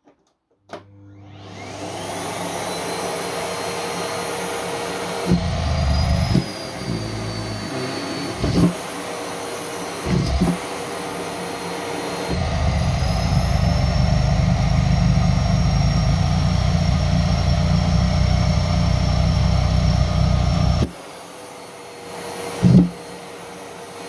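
Miele C3 canister vacuum cleaner switched on with a click, its motor whine rising as it spins up, then running steadily. While the hose sucks in pantyhose and socks, a loud low rumble comes in and the motor whine climbs higher as the airflow is choked, for a few seconds near the start and again for most of the second half, with a few thumps along the way.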